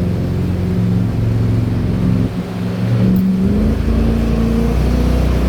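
Jet boat engine running under way. Its pitch dips briefly about two seconds in, then climbs to a higher steady pitch.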